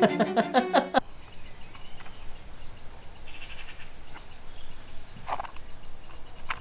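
Birds chirping in woodland over a quiet outdoor background, with short high chirps near the middle. It opens with about a second of loud music and laughter that cuts off abruptly.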